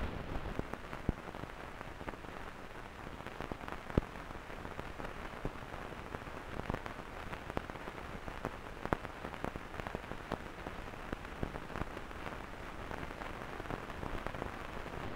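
Steady hiss peppered with irregular crackling clicks and pops, with one sharp pop about four seconds in.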